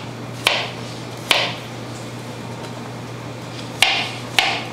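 Kitchen knife slicing a zucchini into rounds on a plastic cutting board: four crisp chops, two in the first second and a half and two near the end, each a sharp knock of the blade on the board with a short crunch.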